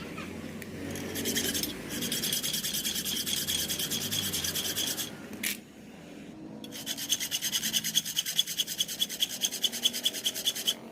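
Rapid back-and-forth hand scraping of metal, like sanding or filing, at about five strokes a second. It comes in two spells separated by a short pause with a sharp click, over a faint low hum.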